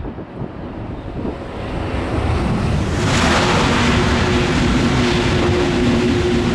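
Eurostar high-speed train passing at speed: a rushing noise builds over the first three seconds, then a loud steady rush of wheels and air as it goes by, with two steady humming tones over it.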